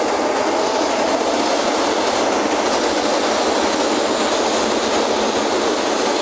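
Metro train passing at speed on the next track in a tunnel: a loud, steady rush of wheel and rail noise.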